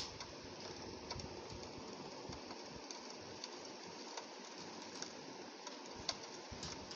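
Rain on a window pane: a steady hiss with scattered sharp taps of single drops, one louder tap near the end.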